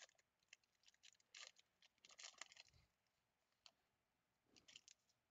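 Faint crinkling of a foil trading-card pack wrapper as it is torn open and handled, in several short crackles.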